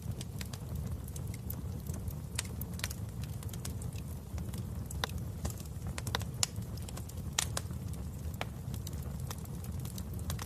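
Wood fire burning in a fireplace: a steady low rumble of the flames with irregular sharp crackles and pops, a few louder snaps around the middle.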